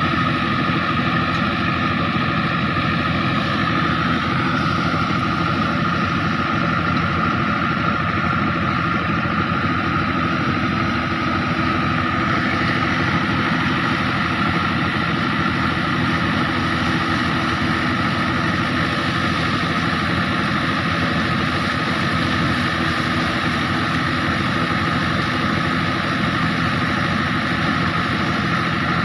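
Fiat 640 tractor's diesel engine running steadily under load, driving a PTO thresher that is threshing crop plants; a continuous, even machine sound with no changes.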